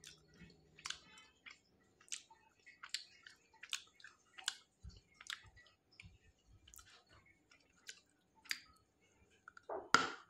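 Close-up mouth sounds of chewing hard, very crunchy baked and dried clay: short sharp crunches about every three-quarters of a second. Near the end comes a louder bite into the clay bar.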